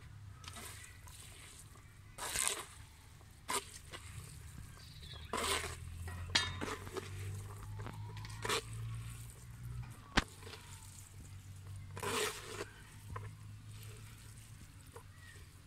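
Hands tossing and lifting oiled, boiled noodles in a plastic colander: irregular soft squishing rustles, with one sharp click about ten seconds in.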